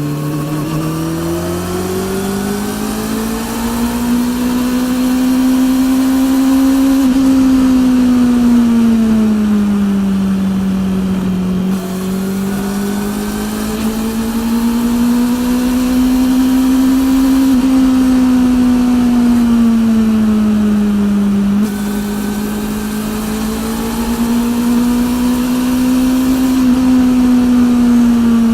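Honda CB400 NC42's inline-four engine breathing through a TSR E02 slip-on exhaust, heard from on the moving motorcycle. The engine note climbs steadily over the first few seconds, then repeatedly rises and falls as the throttle is opened and eased off, with a few brief dips in pitch.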